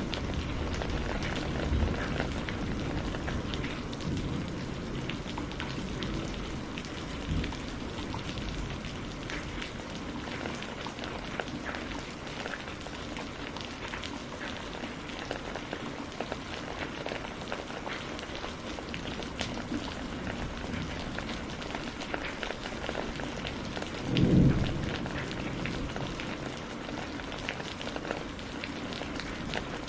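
Steady rain falling, with many small drops ticking. Thunder rumbles low in the first few seconds, and a louder thunder clap comes about three-quarters of the way through.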